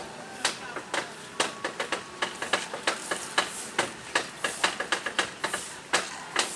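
Train wheels clacking over rail joints and points as a line of passenger coaches rolls past: a rapid, irregular string of sharp metallic knocks, several a second.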